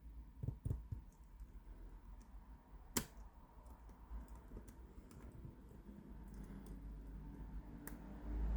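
Faint small metal clicks and light taps of a probe picking the pins of an 8-pin tubular cam lock under light tension, with one sharper click about three seconds in and another near the end.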